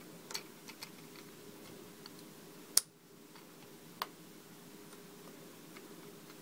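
A few sharp plastic clicks and taps of LEGO bricks as a partly built model is pressed together and handled, the loudest about three seconds in, over a faint steady low hum.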